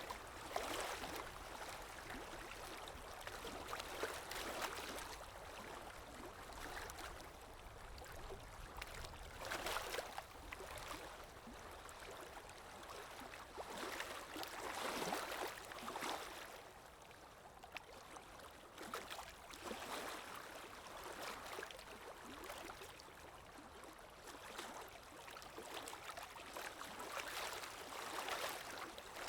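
Calm sea waves: a soft rush of water that swells and fades every few seconds.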